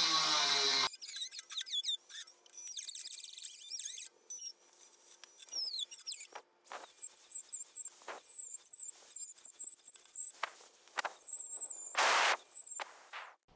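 Dremel rotary tool grinding out mounting holes, with a high-pitched whine that steps up and down in pitch as the bit loads and frees. About a second in, the sound changes abruptly from a louder run with a falling pitch.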